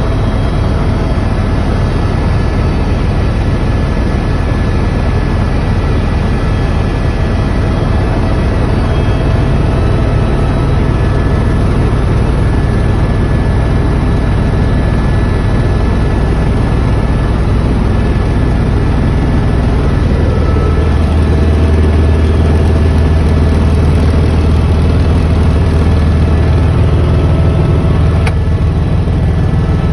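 Cabin noise of a Eurocopter EC130 turbine tour helicopter in flight: a loud, steady rotor drone with a thin turbine whine over it. The low drone shifts slightly lower and grows a little louder about twenty seconds in.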